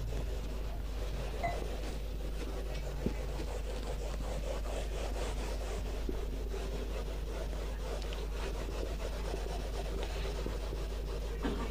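A handheld whiteboard eraser rubbing back and forth across a whiteboard, wiping off marker writing.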